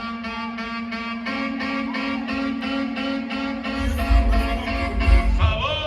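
Upbeat dance music with a wind-instrument lead over a quick, even beat of about four strokes a second and a held bass note; heavy bass hits come in about four seconds in.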